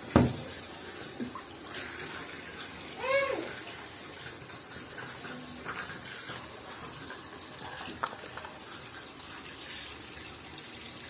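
Water running steadily from a hose into the tub of a semi-automatic washing machine as it is filled. A sharp knock just after the start and a brief rising-and-falling squeak about three seconds in.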